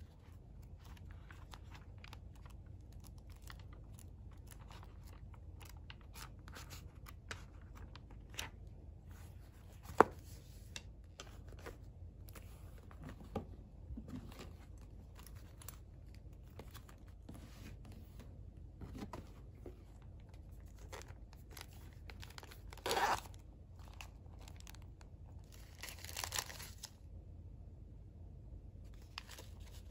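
Close, quiet handling of small items (a paper planner, a pen, a canvas tote bag), with scattered soft taps and rustles and one sharp click about a third of the way in. Near the end come two longer bursts of crinkling wrapper as a candy pack is pulled out and handled.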